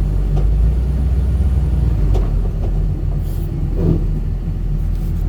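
Engine of a heavy machine running steadily, a low rumble, with a few faint knocks.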